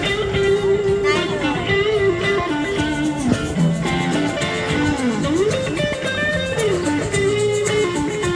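Guitar music: a melodic guitar line with sliding, bending notes over steady accompaniment.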